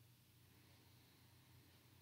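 Near silence: room tone with faint hiss and a low steady hum.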